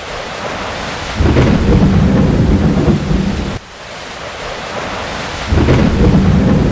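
Thunderstorm: steady rain hiss with two heavy rolls of thunder, the first starting about a second in and breaking off suddenly, the second starting near the end.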